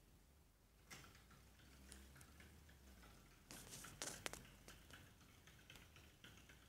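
Faint clicking and scratching of a hamster's claws as it climbs into a plastic exercise wheel and moves about on it, with a louder cluster of clicks around four seconds in.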